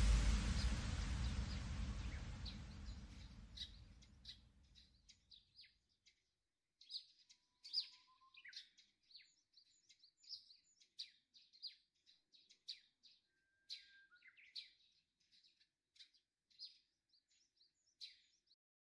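Electronic music fading out over the first few seconds, then faint bird chirps: short high calls about once a second.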